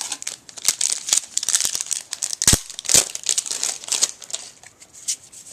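Shiny foil trading-card pack wrapper crinkling and tearing as a pack of baseball cards is ripped open and handled, with two dull thumps about halfway through.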